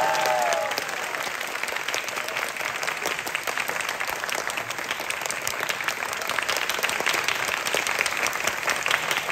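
Audience applauding: dense, steady clapping from a crowd of many people.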